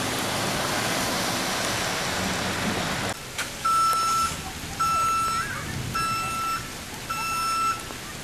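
A pickup truck drives through floodwater in the rain, its tyres throwing up a loud rush of spray. About three seconds in, this cuts to a steady electronic beep repeating about once a second, like a vehicle's reversing alarm.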